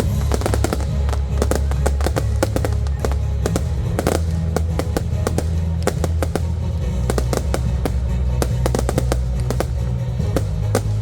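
Fireworks display set to music: a rapid run of sharp bangs and crackles from the shells over a music track with deep held bass notes, with one stronger bang about four seconds in.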